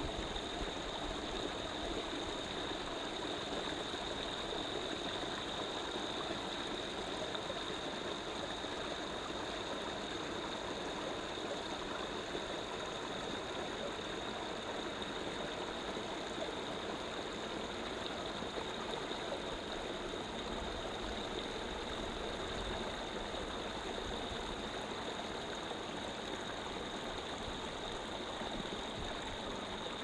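A forest stream running steadily, a continuous rush and gurgle of water, with a faint steady high-pitched tone over it.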